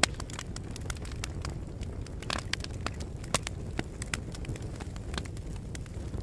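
Fire burning: a steady low rumble with frequent sharp crackles and pops at irregular intervals, the loudest pop right at the start.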